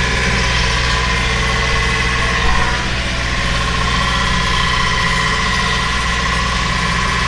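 A sailing yacht's inboard engine running steadily under way, a constant drone.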